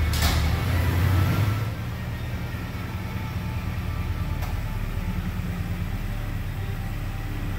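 Ford F-250 Super Duty pickup's engine idling as the truck creeps forward into the shop bay, a steady low drone that drops somewhat in level about two seconds in.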